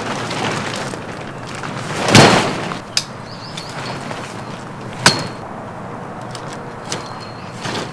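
Coleman Swagger instant-up tent being pitched: its fabric rustles and swishes, loudest about two seconds in, with sharp clicks about three and five seconds in as the pre-attached poles snap and lock into place.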